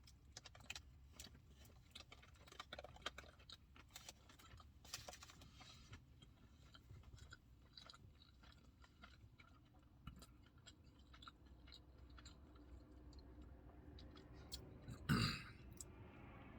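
A person chewing a bite of a burger close to the microphone: soft wet mouth clicks and light crunching at an irregular pace. A louder short rush of noise comes about 15 seconds in.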